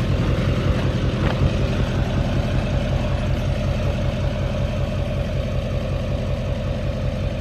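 Truck engine idling steadily with an even, fast low throb.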